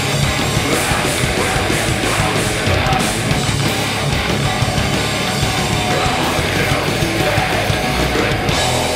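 A rock band playing live and loud: electric guitars, bass guitar and a drum kit with cymbals, in one continuous heavy passage.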